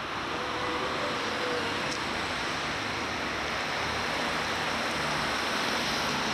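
Steady rushing street ambience on a home camcorder's microphone, with a faint wavering tone early on.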